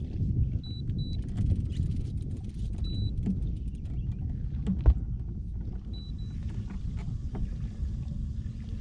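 Uneven low rumble of wind and water on a fishing boat, with several short high electronic beeps and a single sharp knock about five seconds in; a faint steady hum comes in from about six seconds.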